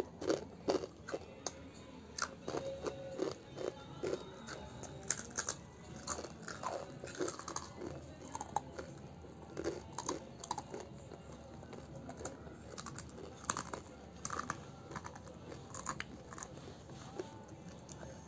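Children chewing crunchy snack food: irregular crunches and mouth clicks, some louder than others, going on throughout.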